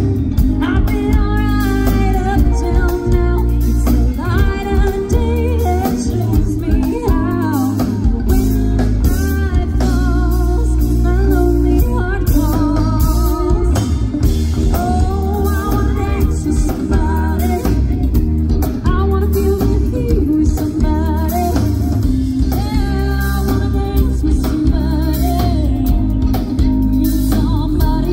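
Live band playing: a woman singing lead over electric guitar, electric bass and drum kit.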